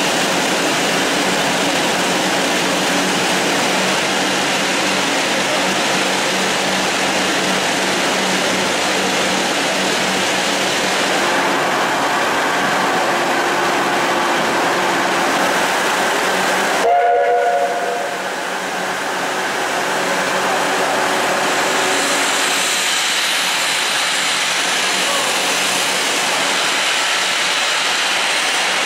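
South African Railways Class 19D steam locomotive standing in steam, giving a loud, steady rushing hiss of escaping steam. About two-thirds of the way in the noise cuts out abruptly, a short pitched tone sounds for about half a second, and then the hiss resumes.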